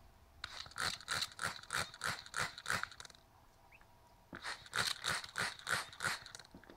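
Trigger spray bottle squirted rapidly, about four quick squirts a second, in two runs of several squirts with a short pause between, misting a young quail.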